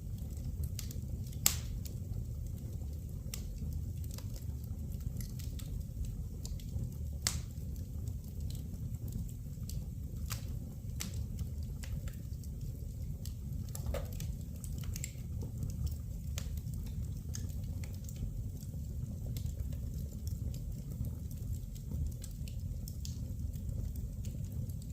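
Wood fire burning in a fireplace, crackling with scattered sharp pops, two louder ones about a second and a half in and about seven seconds in, over a low steady rumble.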